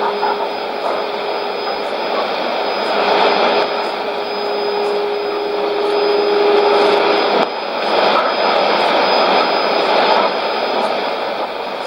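Shortwave test transmission heard through a Sony ICF-2001D receiver: a steady hiss of static and signal noise with a steady tone, joined by a lower second tone about five seconds in. Both tones cut off a little past seven seconds, leaving the noise.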